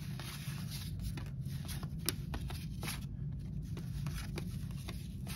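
Freshly pulled 1986 Topps cardboard baseball cards flipped one at a time from hand to hand, sliding against each other in soft, irregular papery ticks and rustles.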